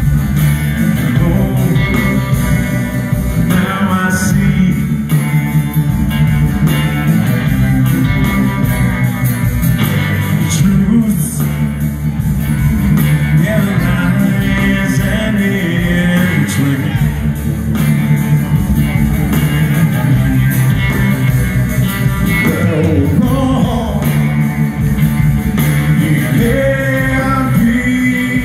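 Live blues-rock band playing loud: electric guitars, bass guitar and drums with a singer, heard from the crowd.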